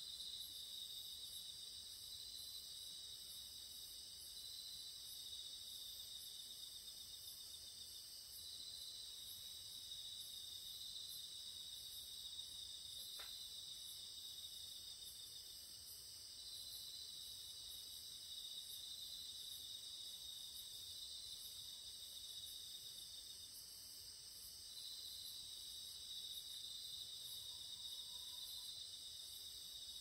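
Night chorus of crickets and other singing insects: several steady high-pitched trills overlap, and one pulsing trill starts and stops every few seconds.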